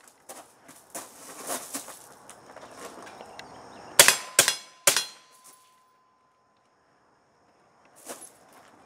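Three quick suppressed shots from a short-barreled LWRC rifle with an AAC 762SDN-6 suppressor, fired within about a second, followed by a thin ringing tone that fades out a second or so later. Before the shots come lighter scuffs and knocks from movement, and there is one more sharp knock near the end.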